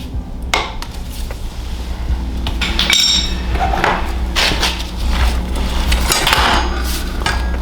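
Metal tools and motorcycle fork parts clanking and clinking in a series of irregular knocks, with a brief metallic ring about three seconds in, over a steady low hum.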